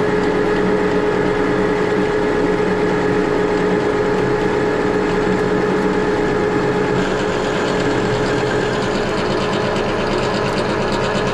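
Metal lathe running and taking a turning cut along a metal bar under power feed, with a steady gear whine and cutting noise. The feed is too heavy for the cut, and a rougher, hissier cutting sound builds about seven seconds in.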